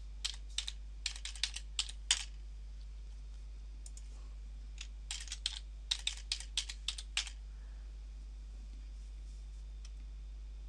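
Computer keyboard typing: two short runs of quick keystrokes, each about two seconds long and about three seconds apart, each typing out one word. A steady low hum runs underneath.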